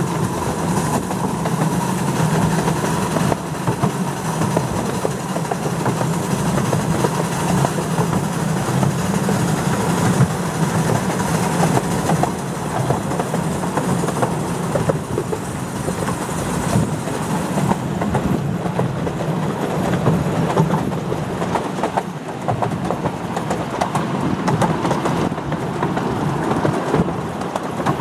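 A 7¼-inch-gauge miniature steam train running along its track, heard from its rearmost open carriage: the steady running noise of the carriages, with the wheels clicking over the rail joints.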